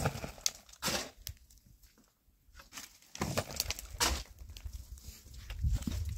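A long-handled tool scraping and sweeping across dry, stony dirt ground in a string of irregular strokes.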